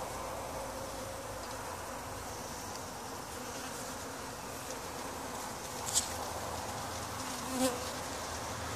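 A swarm of honeybees buzzing as they forage on a flower, a steady hum. Two brief clicks come in the second half.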